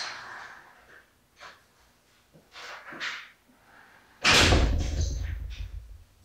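A few faint knocks and clicks, then about four seconds in a sudden loud thump with a low rumble that fades away over about two seconds.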